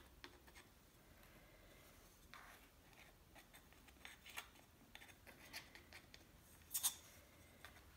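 Faint, scattered crackling and rustling of potting soil as fingers press and crumble it around a begonia cutting in a small terracotta pot, with a sharper double click near the end.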